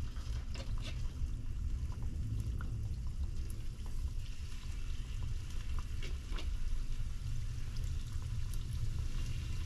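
Small balls of stuffed bake dough frying in hot oil: a steady sizzle with scattered small pops and crackles. A steady low hum runs underneath.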